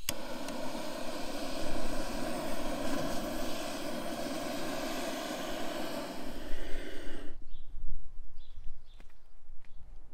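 Handheld butane blowtorch clicks alight and its flame jet hisses steadily against firewood, lighting a wood fire, then shuts off suddenly about seven seconds in.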